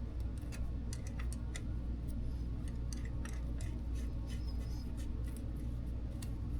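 Light, irregular clicks and ticks as the ATV's oil dipstick is handled while checking the oil level. A steady low hum runs underneath.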